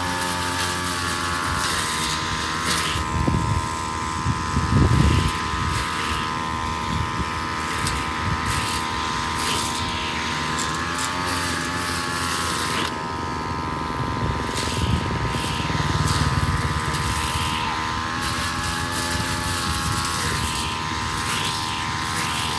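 Two-stroke backpack brush cutter running at high revs with a steady whine as its line head cuts paddy-bund grass. The pitch dips briefly about eleven seconds in.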